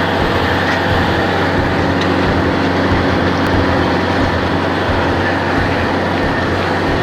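Engine of a post-hole auger rig running steadily while it drills for fence posts.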